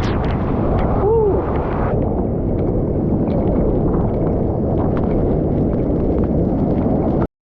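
Waterfall's falling water making a steady, loud, deep rushing noise.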